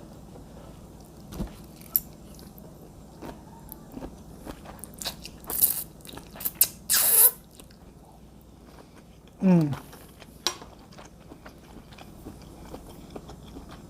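Close-up mouth sounds of eating a first forkful of fettuccine with shrimp and mussels: wet chewing with small smacks and clicks, and a couple of louder airy bursts around the middle. A short "mmm" falling in pitch comes about nine and a half seconds in.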